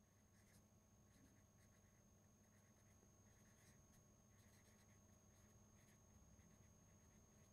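Very faint scratching of a felt-tip marker writing on paper, in many short strokes, over a faint steady hum.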